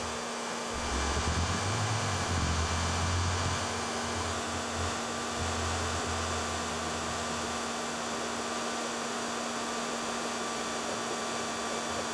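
Hair dryer blowing: a steady rush of air with an even motor hum under it, plus uneven low rumbling during the first several seconds.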